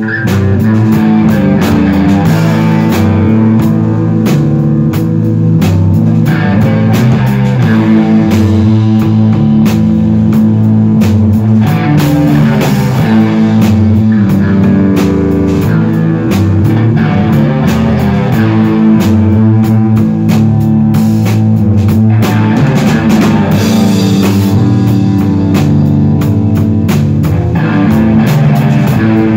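A rock band jamming instrumentally at full volume: guitar over a steady drum-kit beat, with no singing.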